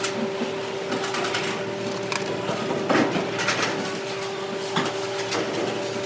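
Workshop machinery noise: a steady machine hum with irregular sharp clicks and knocks of metal work.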